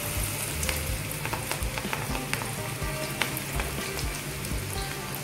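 Cabbage pakora batter deep-frying in hot oil in a kadai: a steady, dense sizzle with frequent crackles and pops as the freshly added wet batter bubbles hard in the well-heated oil.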